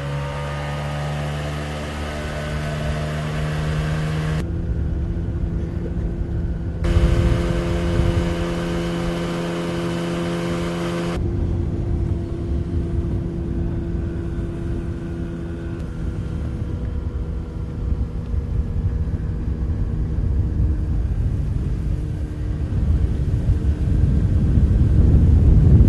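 A vehicle engine revs up, its pitch rising, then runs steadily. A low rumble grows louder near the end.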